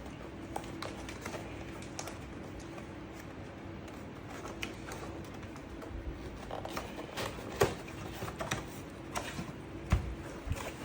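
Scattered light clicks and knocks of hands handling the parts and packaging of a robot vacuum being unboxed, over a faint steady hum, with a sharper knock about two-thirds through and another near the end.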